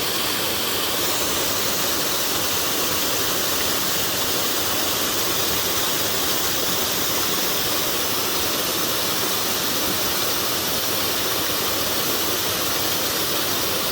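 Loud, steady rush of fast-flowing water from a creek swollen by days of heavy rain.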